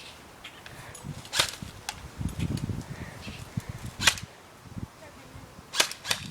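Airsoft guns firing: single sharp snaps about a second and a half in and again about four seconds in, then a quick run of three or four shots near the end.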